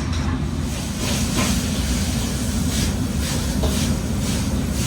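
Steady low machine rumble, loud and unbroken, with short irregular hissing or rustling sounds over it every half second or so.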